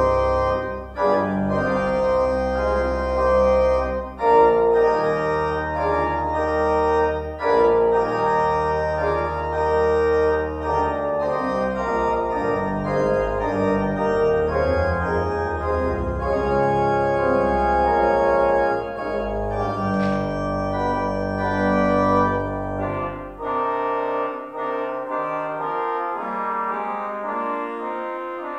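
Church organ played on manuals and pedals: sustained chords and a moving melody over deep pedal bass notes, with the pedal bass dropping out near the end.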